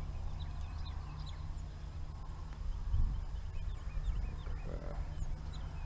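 Small birds chirping off and on over a steady low rumble, with one dull knock about halfway through.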